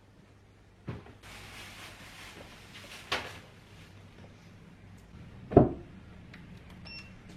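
Drawers and doors of a piece of furniture being opened, shut and handled. There is a knock, about two seconds of scraping hiss ending in a sharp knock, and then a heavier thump about five and a half seconds in, the loudest sound.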